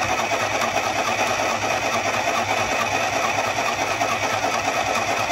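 ArtLak Mini electric sewing machine running steadily at speed, its needle stitching a zigzag through thick wool fabric.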